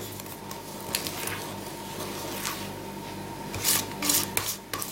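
Coated wire whisk stirring thick chocolate cake batter in a metal bowl: wet squishing and rubbing strokes, with a few sharper scrapes against the bowl near the end. This is the stage where the flour is being worked into the wet mix until no dry flour is left.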